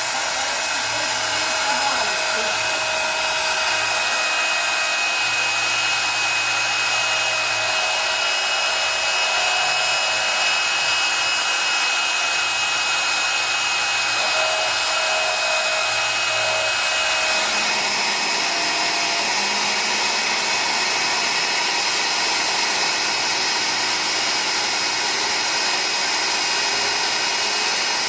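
CNC engraving machine cutting copper: a steady spindle whine with several high tones over a hiss, and a low hum that starts and stops repeatedly for the first two-thirds. About two-thirds of the way through the low hum stops and the sound changes.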